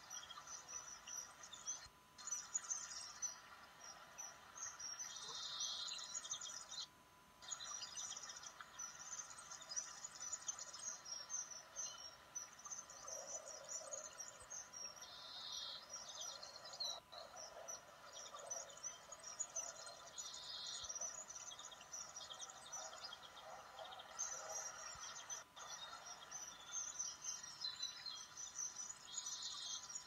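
Small birds chirping and twittering continuously in a dense, high-pitched chorus, with a faint steady hum underneath; the sound drops out briefly about seven seconds in.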